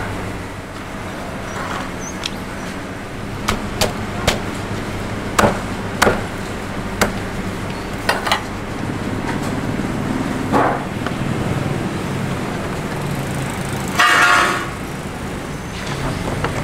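A cleaver chopping roast chicken on a wooden chopping board: about ten sharp, irregular chops, clustered in the first half. Near the end comes one short, louder rustling scrape, all over a steady background hum.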